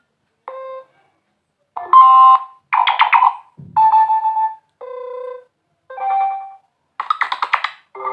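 Notification tones previewed one after another on a Nokia 5.4 phone: about seven different short chimes and jingles, each stopping abruptly, with silence between them.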